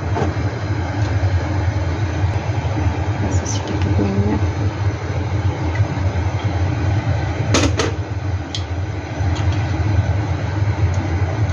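Gas stove burner running under a wok with a steady low rumble. A sharp metallic clack sounds about seven and a half seconds in.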